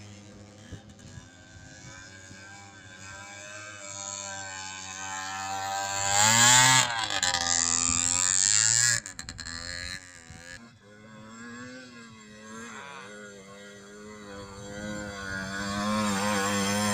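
Small 50 cc motorcycle engines revving as riders pass close through mud, their pitch sweeping up and down. One is loudest about six to nine seconds in and cuts back suddenly, and another comes up close near the end.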